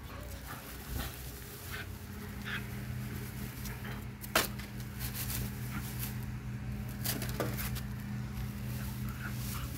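Two puppies scuffling and wrestling in grass, over a steady low hum. A single sharp knock about four seconds in is the loudest sound.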